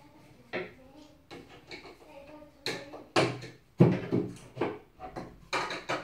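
Knocks and clunks of laminated particleboard bed-frame panels being handled and fitted together, coming thicker in the second half.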